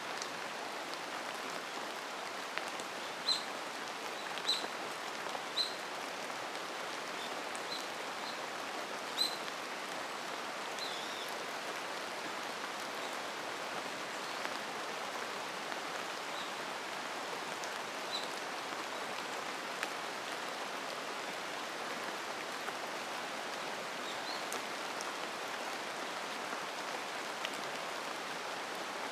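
Steady rain falling in a mountain forest, an even hiss of drops on leaves and ground. Short high bird chirps break through several times in the first ten seconds, with a few more later.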